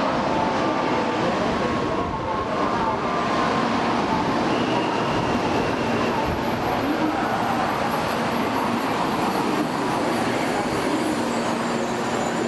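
N700 series 2000 Shinkansen train cars rolling slowly past as the train pulls into the platform, giving a steady rumble of wheels on rail with a faint high squeal partway through.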